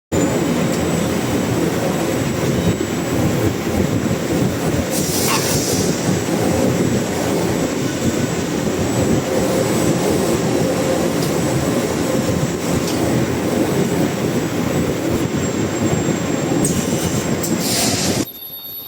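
Continuous bag heat-sealing machine and its conveyor running: a steady mechanical rumble and rattle with a faint high whine, dropping away suddenly near the end.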